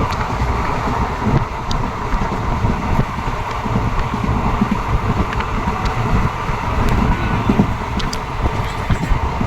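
Steady low rumble of a moving train, with a few faint clicks on top.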